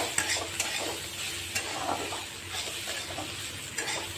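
Flat spatula scraping and turning poha (flattened rice) around a kadai in irregular strokes, over a light sizzle of frying.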